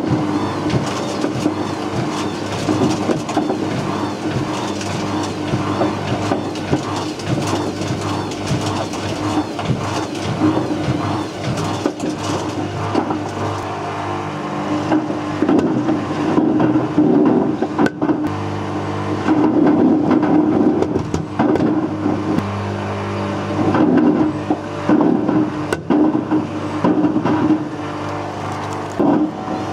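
Whirlpool WWDC 7210/1 washing machine drum turning with a brick inside: a steady motor hum under constant irregular knocking and clattering as the brick tumbles against the drum, growing louder in several swells in the second half.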